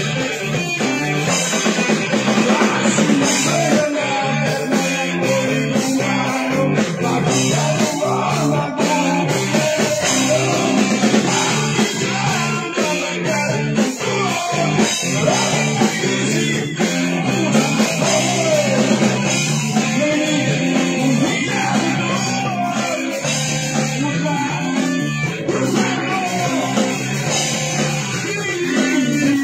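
Live rock band playing electric guitars through amplifiers over a drum kit.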